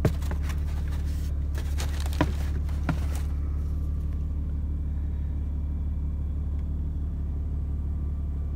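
Steady low rumble of a car's engine running, heard inside the cabin. In the first three seconds a few sharp clicks and rustles come from handling the sneaker and its plastic hang tag.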